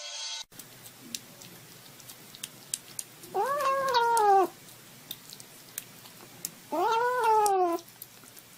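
Bengal kitten giving two drawn-out, wailing meows, each about a second long and rising then falling in pitch, while it eats wet food from a plate. Faint small clicks come between the calls.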